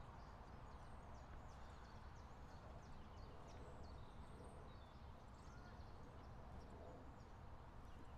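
Near silence: faint outdoor ambience, a low steady rumble with faint, short, high bird chirps scattered throughout.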